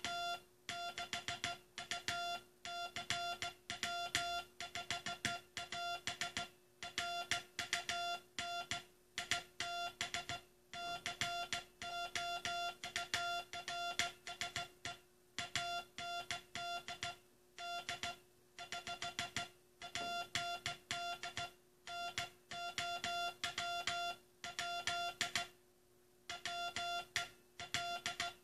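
Morse code (CW) tone keyed by hand: a single high beeping tone switched on and off in the dots and dashes of a message, over a faint steady hum. It is the U.S. Coast Guard's last Morse code message being sent.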